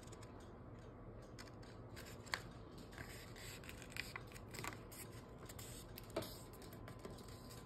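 A sheet of origami paper being handled and folded in half diagonally: faint rustling and crinkling as the corners are lined up, with a few sharper crackles as the fold is pressed down.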